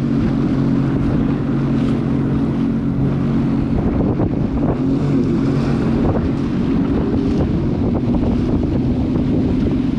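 Jet ski engine running steadily, with wind buffeting the microphone. About four seconds in, the engine's steady tone gives way to a rougher, choppier noise.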